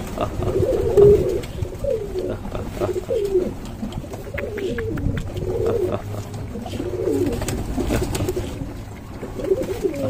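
A flock of feral rock pigeons cooing, many low wavering calls overlapping, with scattered short taps and a thump about a second in.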